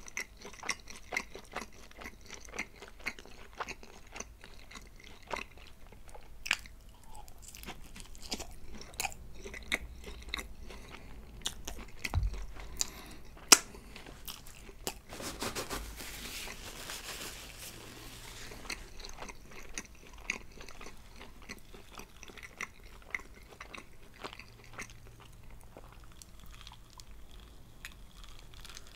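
Close-miked eating of Domino's pizza: chewing and biting with many sharp crunching clicks. About halfway through, a few seconds of soft, even hiss sit under the chewing.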